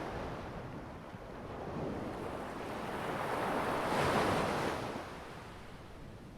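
Ocean waves washing onto the shore: a wave swells to its loudest about four seconds in, then falls away.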